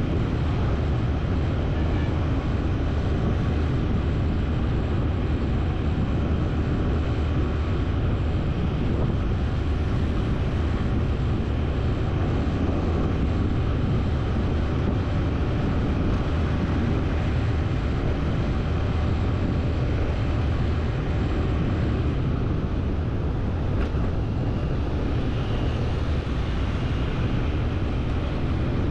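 Steady low rumble of a vehicle on the move, with no distinct events.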